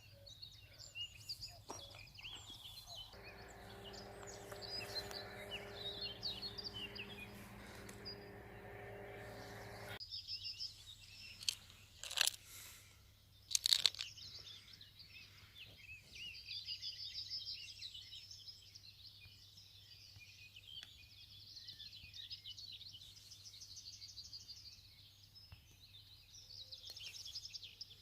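Small birds singing and chirping continuously. A steady low hum sounds for the first third and stops suddenly, and two sharp cracks come about halfway through.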